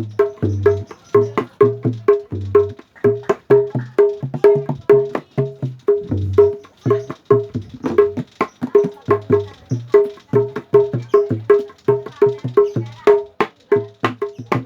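Kendang, the Indonesian two-headed hand drum, played by hand in a fast, steady rhythm. Deep bass strokes mix with sharper, higher-pitched slaps, several strokes a second.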